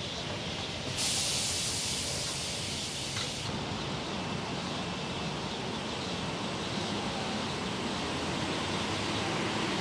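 Car-assembly plant noise: a steady wash of machinery. About a second in, a loud hiss like compressed air starts and cuts off sharply about two and a half seconds later.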